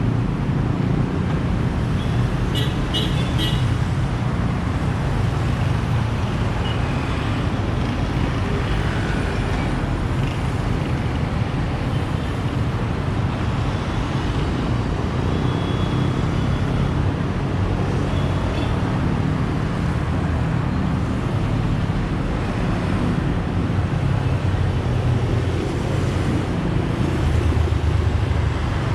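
City road traffic: a steady mix of car, bus and motorcycle engines running past, with a constant low rumble. A brief cluster of sharp high sounds comes about three seconds in.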